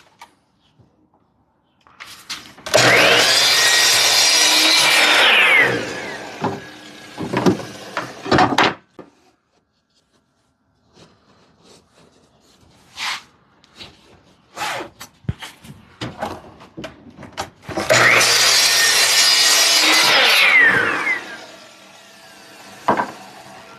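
Power saw cutting wood twice: each time the motor runs up, the blade goes through a 3/4-inch board for about three seconds, then the motor winds down with a falling whine. Knocks and clatter of boards being handled come between the two cuts.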